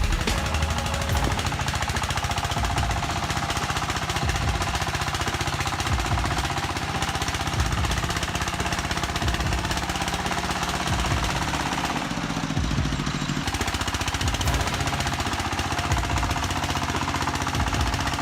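Diesel engine clattering hard and fast under heavy load, a steady rapid knocking as the vehicle labours through mud.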